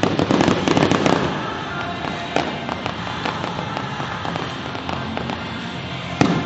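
Fireworks display: a dense cluster of bangs and crackle in the first second, then scattered pops, with a sharp bang about two seconds in and another loud bang near the end.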